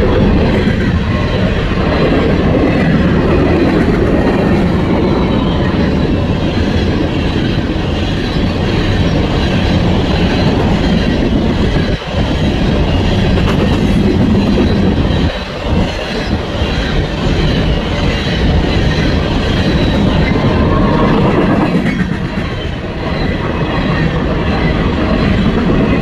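A long Norfolk Southern coal train's cars rolling past close by: a steady, loud rumble and clatter of wheels on the rails, with a couple of brief dips midway.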